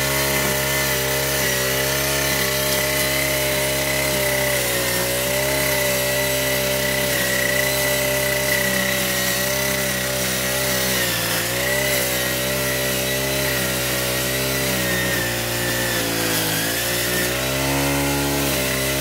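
Small engine of a grass cutter (brush cutter) running steadily at working speed, its pitch sagging briefly about halfway through and again near the end.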